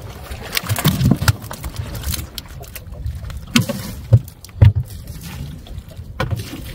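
Fish sliding and slapping into a boat's fish box as a plastic crate is tipped out. There are scattered knocks and clacks of the crate and fish, and two sharp thumps about four seconds in, over a low rumble.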